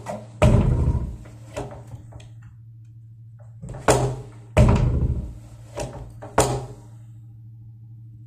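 A door on a worn Dorma overhead door closer being swung hard and banged, six knocks and thuds in two groups of three, the heaviest two ringing on for about a second, over a steady low hum.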